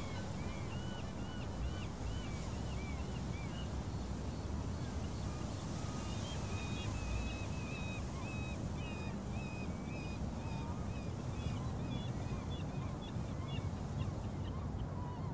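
Birds calling: many short, arched calls repeating quickly, over a steady low background rumble.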